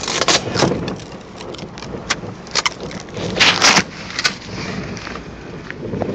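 Rustling, crinkling bursts and clicks from a shiny PVC rain suit and the handheld camera rubbing against it, loudest about half a second in and again around three and a half seconds. Under them runs the steady noise of a car interior on the move.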